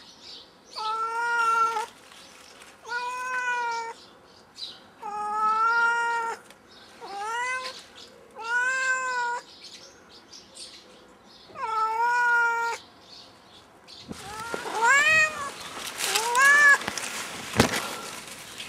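Black domestic cat up in a tree it won't climb down from, meowing over and over: long drawn-out meows every couple of seconds, then, over a rustling of leaves, shorter rising meows, with a sharp knock near the end.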